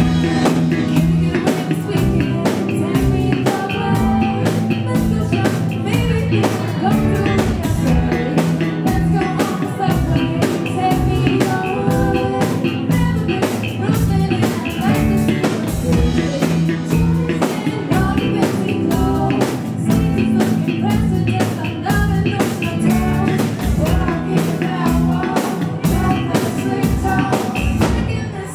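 Live band playing a song: a drum kit keeps a steady beat under bass, electric guitar and keyboards.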